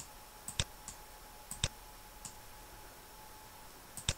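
Computer mouse buttons clicking: about eight short, sharp clicks, a few of them in quick pairs like double-clicks.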